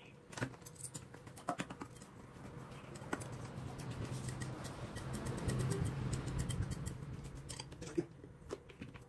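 Chopsticks tossing sauced rice noodle rolls in a porcelain bowl: a run of wet, sticky squelching and light clicks against the bowl. It builds up over a few seconds and eases off near the end.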